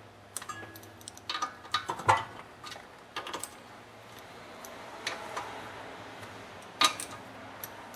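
Ratchet wrench clicking in short runs with pauses between them, along with light metal clinks of the socket: the sump cover bolts are getting their final tightening.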